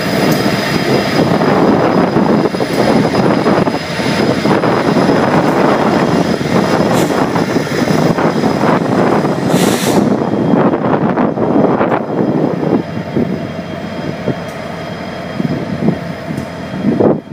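Diesel-electric freight locomotives, among them the EMD SD70MAC, rolling slowly past at close range with their diesel engines running loudly. The sound eases slightly after about twelve seconds and breaks off suddenly near the end.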